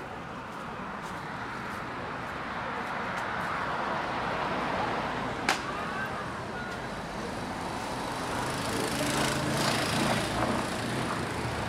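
City street traffic: vehicles passing, the noise swelling and easing, with a single sharp click about five and a half seconds in.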